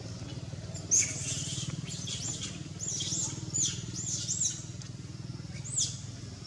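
A bird calling with high, arched chirps, several of them in quick pairs, starting about a second in, over a steady low hum.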